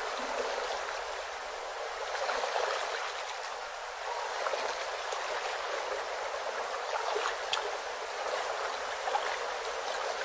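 Stream water running steadily over a rocky shallows, with faint trickles and small drips.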